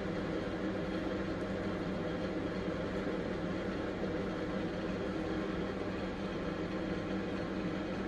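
A steady mechanical hum with a few even tones, level throughout.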